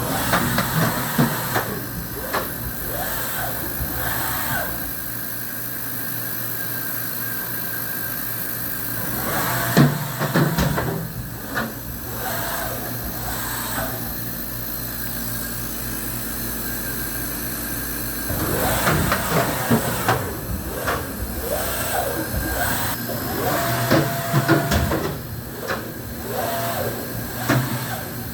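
Fadal VMC4020 vertical machining center running, with a steady electrical and mechanical hum. Over it come several stretches of clicks, clunks and short whines from moving parts, with a brief steady whine near the end.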